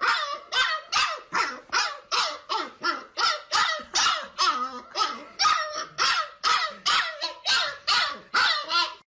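A dog barking in a steady, rapid string, about three barks a second.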